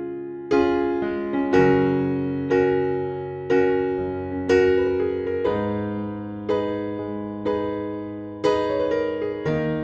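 Background music: electric piano chords struck about once a second, each fading before the next.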